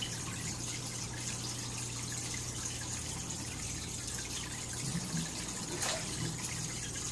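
Aquarium filter running, with a steady trickle and splash of water falling back into the tank and a low steady hum underneath.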